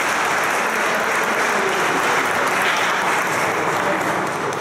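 Applause from a small crowd clapping steadily, easing off slightly near the end.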